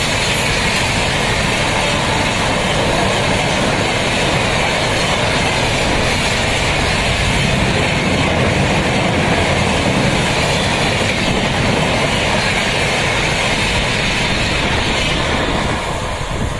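An Indian Railways express's LHB passenger coaches passing close at high speed: a loud, steady rush of wheels on rail and wind, easing off near the end as the last coach goes by.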